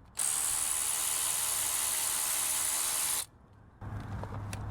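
Power ratchet running steadily for about three seconds as it spins out a brake caliper bolt, starting and stopping abruptly.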